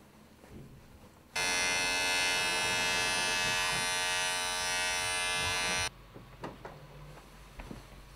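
A loud, steady electric buzz that switches on sharply about a second and a half in and cuts off just as sharply some four and a half seconds later, followed by a few faint clicks and knocks.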